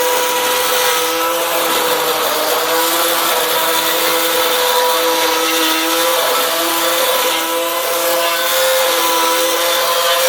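Electric angle grinder fitted with a trimmer line, running as a homemade lawn mower cutting tall grass: a steady high whine, with a lower tone that keeps coming and going.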